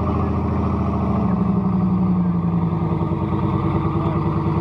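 A car engine running steadily at idle, its pitch dipping slightly about a second and a half in.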